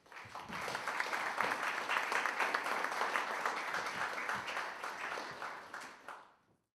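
Audience applauding: the clapping swells over the first second, holds steady, then fades and cuts off near the end.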